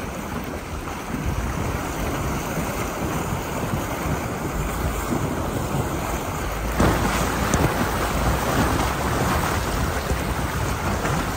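Jeep driving through a shallow rocky creek: water sloshing and splashing around the tyres over a low engine rumble, getting louder about seven seconds in.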